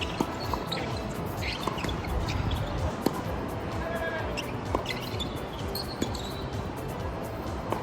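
Tennis rally on a hard court: sharp pops of a tennis ball being struck and bouncing, roughly every one and a half seconds, over steady wind buffeting the microphone.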